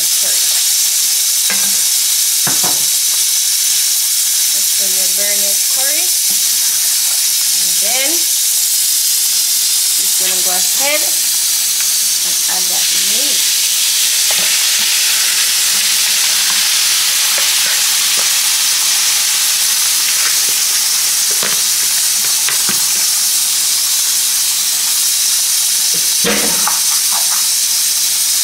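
Curry-seasoned goat meat browning in a hot pot, a steady loud sizzle, with a few sharp knocks of a spoon against the pot as it is stirred.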